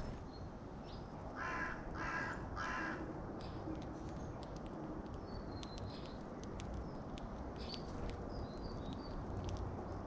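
Carrion crow cawing three times in quick succession, starting about a second in.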